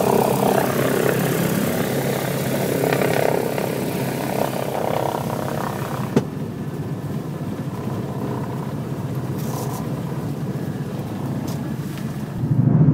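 Radial piston engine of a twin-engine Beech running steadily, heard from inside the cabin. There is a sharp click about six seconds in, after which the engine sound is quieter.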